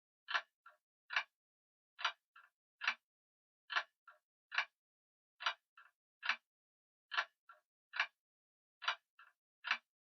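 Grandfather clock ticking slowly: a sharp tick and tock about 0.8 s apart, the first followed closely by a faint softer click, the pattern repeating about every 1.7 s against dead silence.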